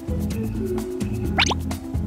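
Playful background music with a steady, repeating bass line, and a short whistle-like glide about one and a half seconds in.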